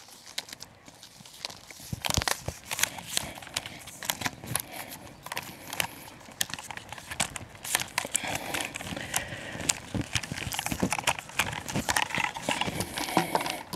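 Carbon fibre travel tripod being set up in a hurry: irregular clicks and clacks as the legs are swung down and the metal flip-lock leg clips are snapped open and shut.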